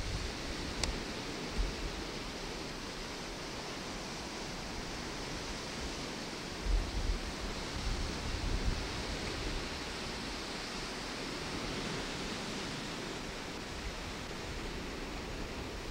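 Steady rushing outdoor noise on a camcorder microphone, with low rumbling buffets against the microphone around seven to nine seconds in and a faint click about a second in.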